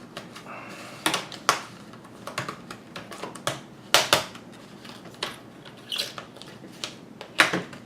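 Plastic LCD bezel of a Dell Latitude E7440 laptop being pried off with a plastic card: irregular sharp clicks and crackles as the glue and the little retaining pins let go, with a few louder snaps.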